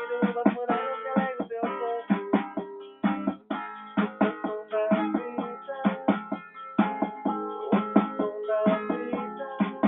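Music on a plucked string instrument: a quick run of picked notes and chords, each attack sharp and ringing briefly, with no deep bass notes.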